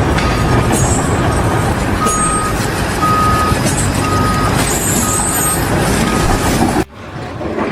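Heavy vehicle's engine running, with a reversing alarm beeping about once a second. The sound drops off suddenly near the end.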